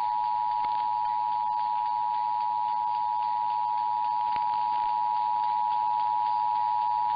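Emergency Alert System attention signal: the two-tone alert of 853 Hz and 960 Hz sounding together, held steady without a break, announcing a required monthly test of the Emergency Alert System.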